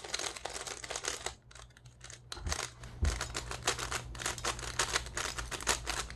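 Plastic speed cube being turned fast by hand, its layers clicking and clacking in quick runs, with a short pause a little over a second in and a couple of dull thumps around the middle. The cube is freshly lubricated and being broken in.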